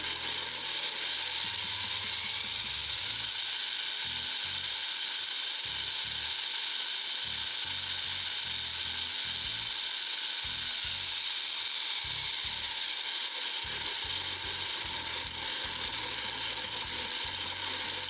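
A 3D-printed stacked planetary gearbox driven by a 5010 brushless motor, running steadily with no load and making a loud, harsh gear noise. Its printed gears are straight-cut and have not been lubricated yet; the maker puts the noise down to their high pressure angle, loose printed clearances and straight-cut teeth.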